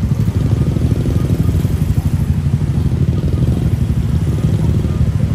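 A large engine running steadily with a deep, even rumble.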